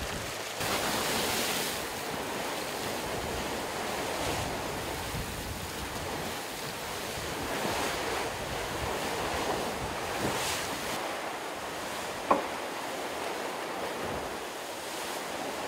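Wind and rushing water around a Volvo Ocean 65 racing yacht sailing fast at night, with waves hissing along the hull in surges every few seconds and wind buffeting the microphone. A single sharp knock about twelve seconds in.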